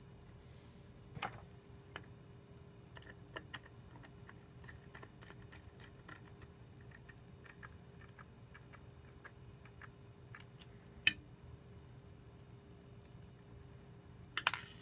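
Faint, scattered small clicks and taps of a Mac Mini's drive frame and case parts being handled during reassembly. There is a sharper click about eleven seconds in and a quick cluster of clicks near the end.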